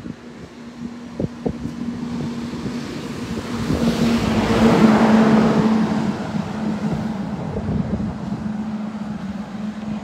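A motor vehicle passes close by, its engine hum and tyre noise rising to a peak about halfway through and then slowly fading.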